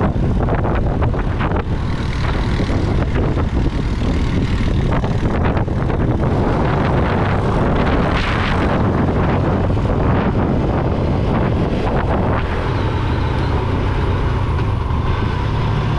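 Motorcycle on the move: engine running under a heavy rush of wind noise on the camera microphone. About three-quarters through, the engine hum comes through steadier.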